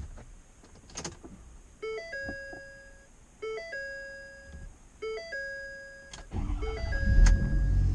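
A dashboard warning chime sounds three times, then about six seconds in the Ford 6.7 Power Stroke V8 diesel cranks and starts, settling into a loud, low running rumble.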